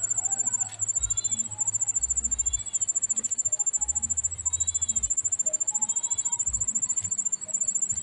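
Insects chirring: a steady, rapid, high-pitched pulsing trill. Under it, a softer short arched call repeats about every second and a quarter.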